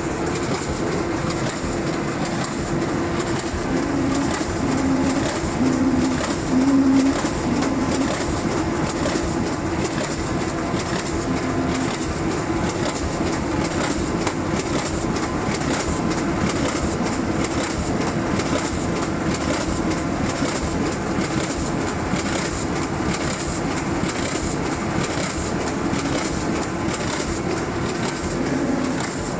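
Automatic vacuum-transfer four-colour flexo printing and die-cutting machine for corrugated cartons running: a steady, dense mechanical clatter with a rapid rhythmic clicking over a steady hum. A few brief low tones sound in the first several seconds.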